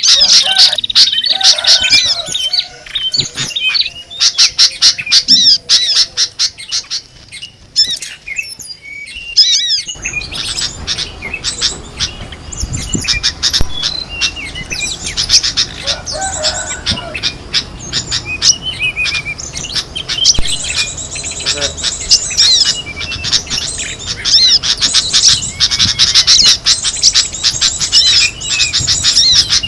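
A bird-lure recording of many small songbirds chirping, trilling and squawking together in rapid, high-pitched calls. About ten seconds in, a low steady background noise comes in beneath the calls.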